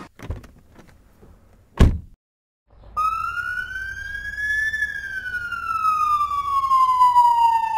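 A sharp thump, then after a brief silence a siren wails over a low rumble, rising slowly in pitch and then falling in one long sweep, and cutting off abruptly.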